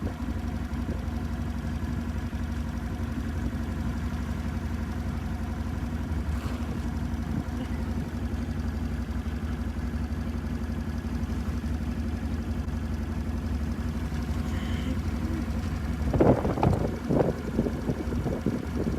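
ATV engine running steadily at low revs, with a short louder patch near the end.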